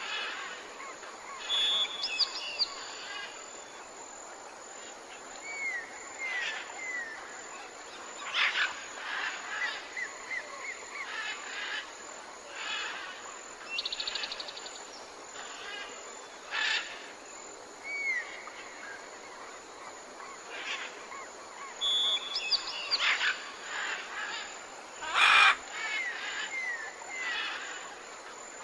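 Wild birds calling and chirping, short scattered calls and little up-sliding notes over a steady background hiss, with a louder burst about 25 seconds in.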